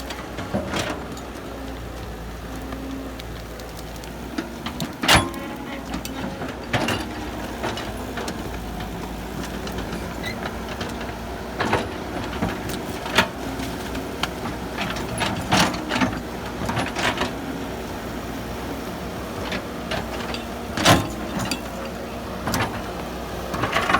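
Excavator's diesel engine running steadily, with sharp metallic clanks and knocks at irregular moments, the loudest about five seconds in and near the end.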